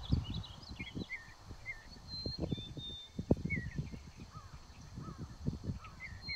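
Small birds chirping in short, wavering notes, with a few brief high whistles, over low rumbling and thumping noise on the microphone.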